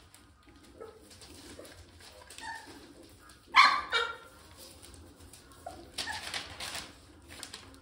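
Bouvier des Flandres puppy giving two short, high yelps in quick succession about three and a half seconds in. Softer rustling follows about six seconds in.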